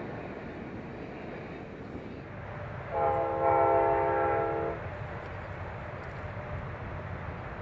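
Amtrak passenger locomotive's multi-chime air horn sounding one blast of just under two seconds, a chord of several notes at once, over a steady low rumble.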